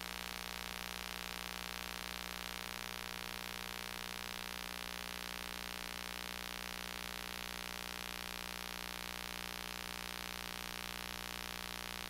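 Steady static hiss with a low electrical hum, no voice.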